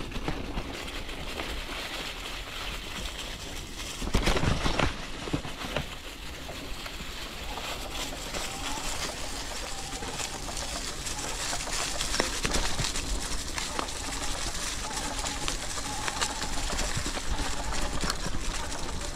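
E-bike rolling along a trail: steady tyre and wind noise on the mic, with a louder bumpy stretch about four seconds in.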